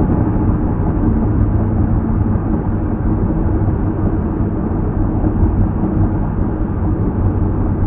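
Steady road and engine rumble of a car cruising at freeway speed, heard from inside the cabin: an even, unbroken drone with a low hum beneath it.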